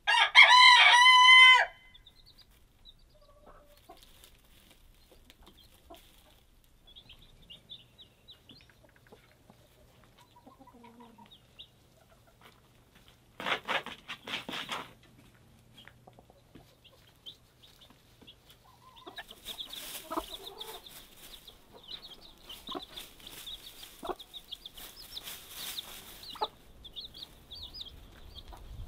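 A rooster crows once, loudly, at the start. About halfway through a hen gives a short burst of clucking, and in the last third chicks peep rapidly and continuously.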